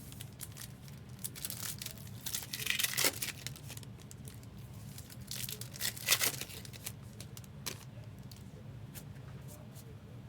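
Trading card pack wrappers being torn open and crinkled as cards are handled, with louder rustles about three seconds in and again around six seconds. A steady low hum sits underneath.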